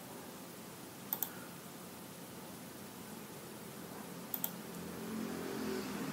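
Computer mouse clicking in two quick double clicks, one about a second in and one about four seconds in, over a steady background hiss. A low hum swells briefly near the end.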